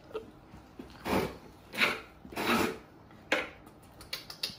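Three short scraping rubs about half a second apart, then a light knock and a few faint ticks, as a baby macaque clambers across small plastic chairs.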